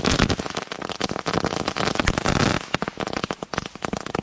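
Ground firework from a fireworks finale spraying sparks: a dense hiss of rapid crackles and pops, thinning to scattered crackles about two and a half seconds in as it burns out.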